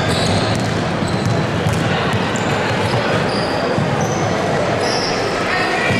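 Basketball game in a gymnasium: a ball bouncing on the court amid a murmur of voices, with a few sharp knocks and short high squeaks, echoing in the large hall.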